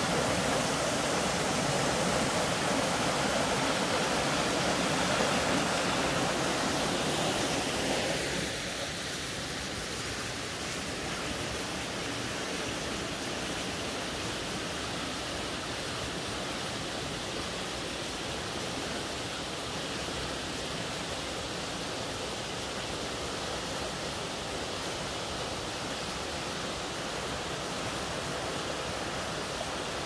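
Shallow mountain stream flowing over rocks, a steady rush of water. About eight seconds in it drops to a quieter, thinner rush and stays even.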